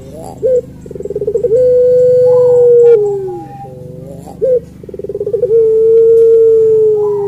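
Barbary dove (ringneck dove, 'puter pelung') cooing twice. Each coo is a short note, then a rolling trill that runs into a long drawn-out coo, which falls in pitch at the end.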